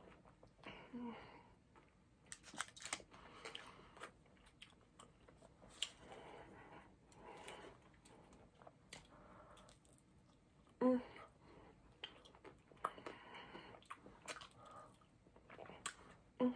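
A person chewing and biting chocolate-dipped strawberries, the chocolate shell crunching, in a string of separate mouthfuls with small clicks between them.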